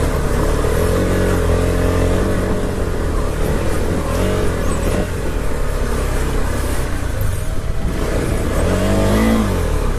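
KTM 390 Adventure's single-cylinder engine running on a rough off-road track, its revs rising and falling with the throttle, with a clear rise and drop about a second in and again near the end.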